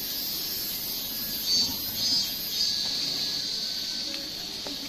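Outdoor ambience: a steady, high-pitched insect drone that swells and fades, over a faint low murmur.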